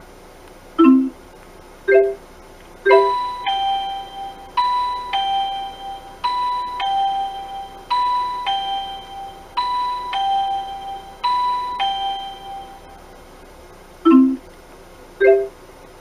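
Car navigation unit playing an alert sound effect: a two-note electronic ding-dong chime, high then low, repeated six times. Single short beeps come before and after it.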